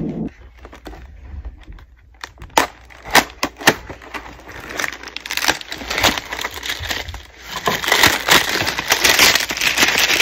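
Cardboard box being opened by hand: scattered sharp snaps and scrapes as the tape is slit and the flaps are pulled, then denser crinkling and crackling of cardboard and packaging from about eight seconds in.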